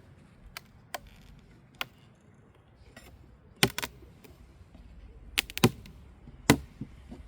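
Irregular sharp knocks and clicks of wooden beehive parts being handled, such as frames and boxes bumped or pried apart, about seven in all. The loudest come just past halfway and near the end.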